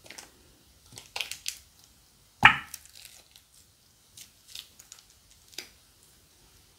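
Crunchy slime and plastic bags being handled: scattered crinkles and crackles in small clusters, with one loud sharp snap about two and a half seconds in.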